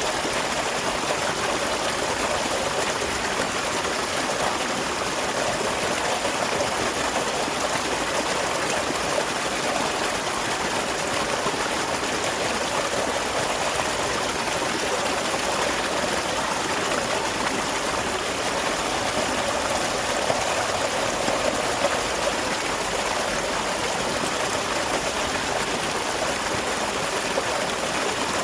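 Small waterfall splashing and running steadily into a stream.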